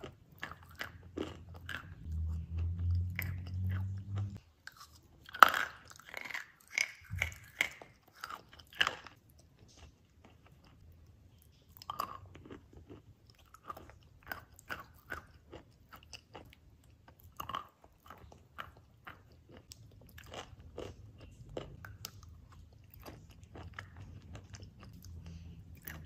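Close-up mouth sounds of eating a thick, creamy paste off a spoon: sticky lip and tongue clicks and smacks, coming thickest and loudest about five to nine seconds in. A low rumble runs underneath from about two to four seconds in.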